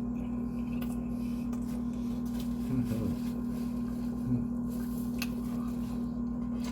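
A person eating, with quiet chewing and mouth clicks over a steady low hum. There is a short low hummed 'mm' sound about three seconds in and another just past four seconds.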